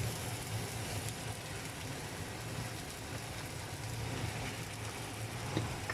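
Chicken masala sizzling in a hot, ghee-greased pot: a steady even hiss, with a low steady hum underneath.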